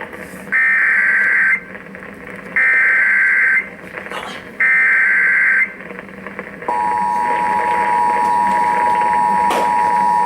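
Emergency Alert System broadcast: three one-second bursts of the shrill, warbling SAME data header, then the steady two-tone EAS attention signal sounding from about two-thirds of the way in. It opens a National Weather Service tornado warning.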